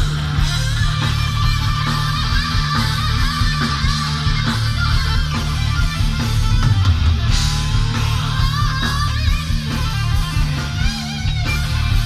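Thrash metal band playing live at full volume: distorted electric guitars, bass and drums through a PA, heard from within the crowd.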